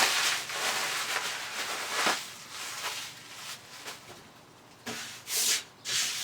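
Hands rubbing and scraping over the table saw's top, in noisy strokes that fade after the first two seconds, with two short sharp swishes near the end.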